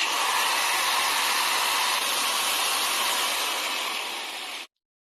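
Repaired electric hand drill running at full speed, its brushed motor giving a steady whir that cuts off suddenly near the end.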